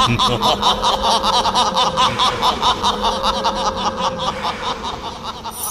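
A man's long, rapid, villainous stage laugh, 'ha-ha-ha' at about eight beats a second, over a steady held drone. The laugh thins out near the end.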